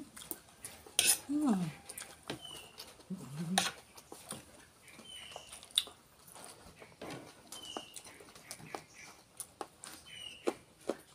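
Two people eating: chewing and crunching raw lettuce and cucumber with rice, with lip smacks, small clicks and a spoon clinking. A couple of short hummed sounds come in the first few seconds, and faint high chirps recur every couple of seconds.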